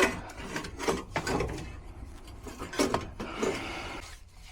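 Handling noises from work on a furnace blower: scattered knocks, clicks and rubbing of parts and tools being moved and set down.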